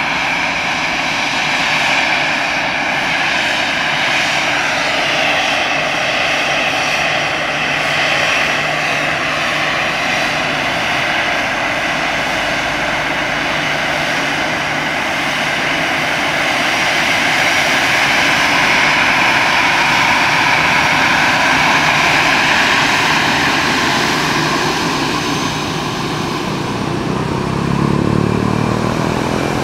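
Airliner engines running loud and steady, with a whining tone over the roar; near the end the sound sweeps as the aircraft moves past.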